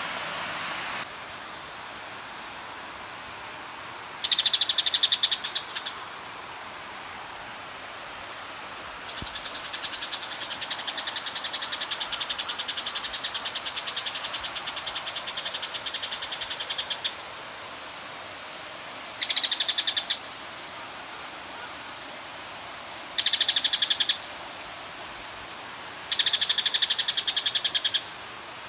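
Loud, high, rapidly pulsing animal calls come in bursts of one to eight seconds, five times. Beneath them is a steady rush of river water pouring over a concrete weir.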